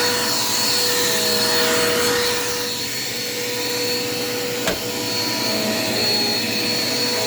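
Dirt Devil Quick Power vacuum cleaner running steadily: a constant motor hum and high whine over the rush of suction air. A single sharp click comes about two-thirds of the way through.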